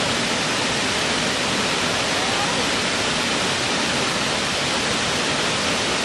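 Large waterfall: a steady, unbroken rush of falling water.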